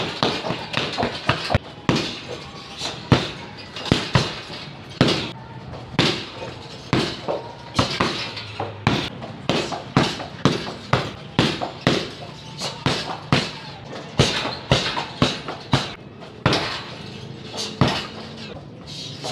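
Repeated kicks striking a hanging teardrop-shaped leather heavy bag. Sharp slaps land about one to two a second, sometimes in quick pairs.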